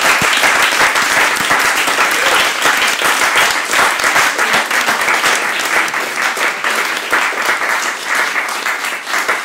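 Audience applauding loudly, a dense patter of many hands clapping that eases off near the end.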